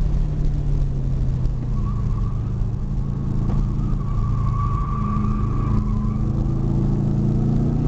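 Car engine running at steady moderate revs with road and wind noise, heard from inside the cabin. A faint high whine comes in about two seconds in and fades out around six seconds, while the engine note rises slightly.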